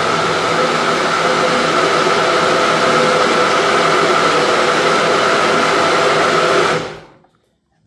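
Nutribullet Pro 900 blender motor running steadily at full speed, blending a fruit smoothie with added ice and water. It is switched off about seven seconds in and stops quickly.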